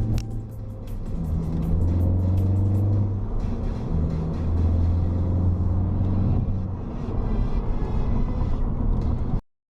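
Music with a heavy bass line and fast, even ticking percussion over the first few seconds, cutting off suddenly near the end.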